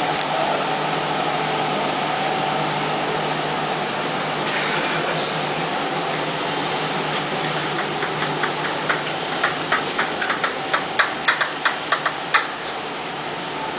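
Steady fan-like hum, then from about halfway a quick, irregular run of sharp clicks, a few a second, that stops near the end: cartridges being pressed into pistol magazines.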